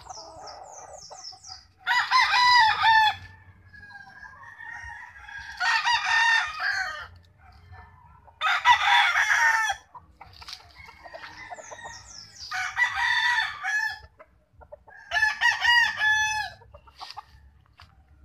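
Gamefowl roosters crowing: five loud crows, each about a second and a half long, coming every three to four seconds, with softer calls between them.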